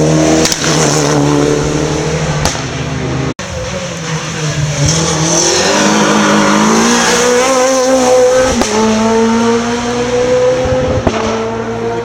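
Rally car engines at full throttle going past, the engine note rising and then stepping down with gear changes, with a brief total dropout in the sound a little over three seconds in.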